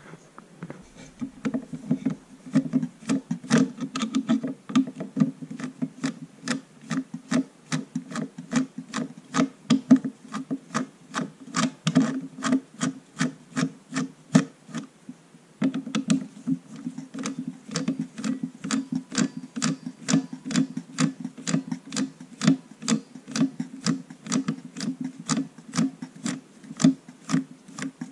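Screwdriver turning a screw in the Kenwood Chef mixer's metal chassis at the speed-control circuit board, a rhythmic rasping click about two or three times a second, with a short pause about halfway through.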